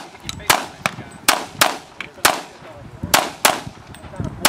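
A string of semi-automatic pistol shots, about seven sharp reports at uneven spacing, between a third of a second and about a second apart.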